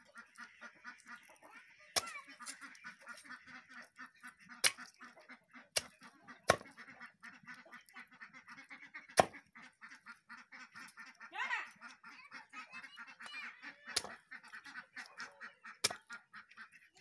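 An axe-like chopper striking through raw chicken legs into a wooden chopping board: seven sharp chops at uneven intervals. Behind them, poultry keep up a steady chatter of honking and quacking calls, with one longer rising-and-falling call near the middle.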